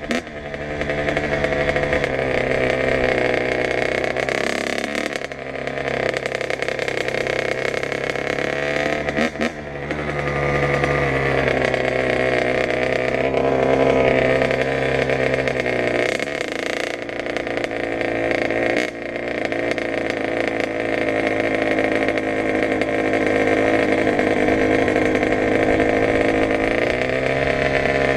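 Kawasaki KX100's two-stroke single-cylinder engine running while the bike is ridden. The revs rise and fall with the throttle, dropping off several times and climbing again.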